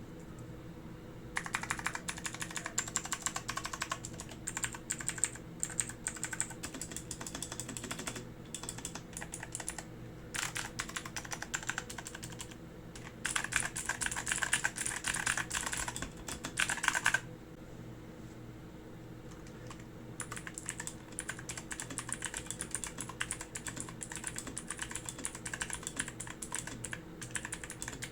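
Typing on a Zifriend ZA94 mechanical keyboard with Otemu Blue clicky switches: quick runs of sharp keystroke clicks. They are loudest a little past the middle, stop for about three seconds, then resume.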